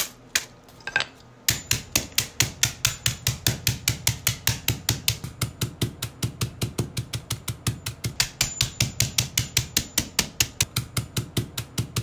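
A hammer pounding coffee beans in a zip-top plastic bag on a concrete floor, crushing them. After a few separate knocks, it settles about a second and a half in into fast, even blows, about four a second.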